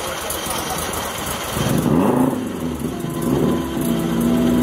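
A car engine revs up about a second and a half in, falls back, and then holds a steady note.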